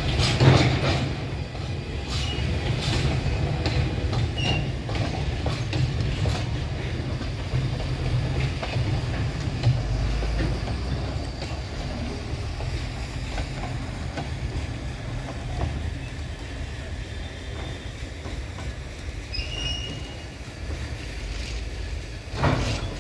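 Empty flatbed freight wagons and a brake van rolling past, steel wheels knocking over rail joints over a steady low rumble, with a couple of brief high wheel squeals.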